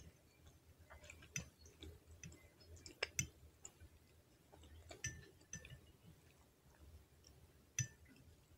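Metal fork clinking and scraping against a glass bowl as baked rotini pasta is scooped up: a handful of faint, sharp clinks, the loudest about three seconds in and near the end, with quiet chewing between.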